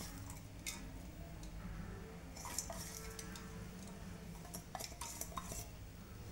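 Light clinks and scrapes against a metal cooking pot while fried onions are mixed into cooked rice by hand, a few scattered taps, with a cluster in the latter half, over a low steady hum.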